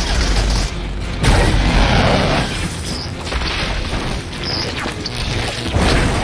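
Action-film battle sound effects: heavy booms and crashing impacts as electrified energy whips lash against armoured suits, over a dense rumble. Loud hits come about a second in and again near the end.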